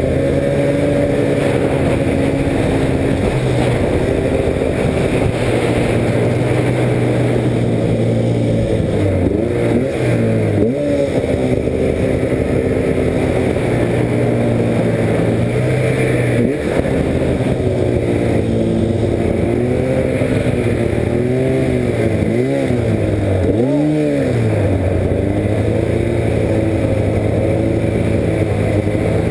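Snowmobile engine running under throttle, its pitch mostly steady but dipping and rising again about 10 seconds in and twice more around 22 to 24 seconds in.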